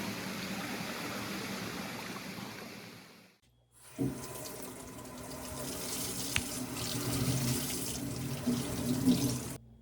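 Running water, a steady rush, in two stretches with a brief silent break about three seconds in.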